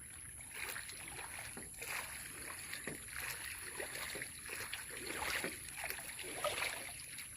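Soft, irregular water splashes and swishes over a steady faint high hiss.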